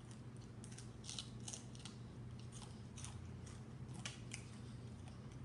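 Crisp crunching and crackling of a crispy whole fish being chewed and picked apart by hand, in short irregular snaps several times a second, over a low steady hum.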